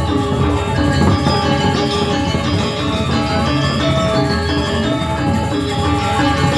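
Balinese gamelan playing dense, steady music of many ringing metal tones: the accompaniment to a topeng keras masked dance.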